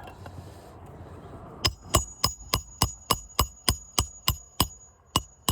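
Hammer driving roofing nails into an asphalt shingle: a quick, even run of sharp metallic strikes, about three a second, each with a short ring, starting about a second and a half in and pausing briefly near the end. It is a loose shingle being nailed back down as a temporary repair.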